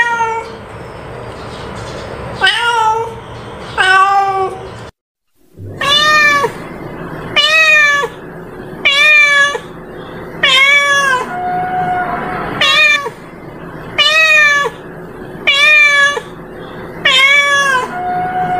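Domestic cat meowing over and over, short meows about every second and a half, each rising then falling in pitch. There is a brief silent break about five seconds in.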